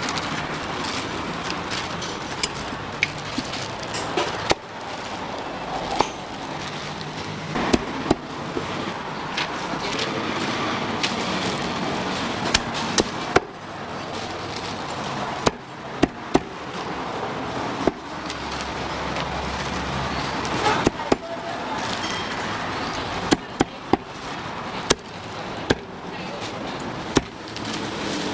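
Irregular sharp chopping knocks, a few every couple of seconds, over a steady noisy background of food preparation.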